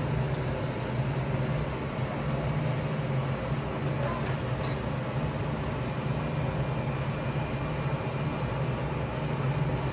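Wagyu cooking on a teppanyaki griddle: a steady low hum under a faint sizzle, with a couple of light metal clicks from the spatulas about four seconds in.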